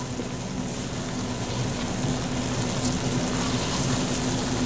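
Chicken and broccoli sizzling in bubbling sauce in a hot wok, a steady hiss that slowly grows louder, with a steady low hum underneath.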